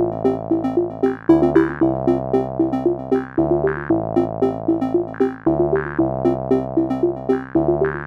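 Background music: a light electronic keyboard tune, with a short repeating melody over a bass line that steps to a new note about every second.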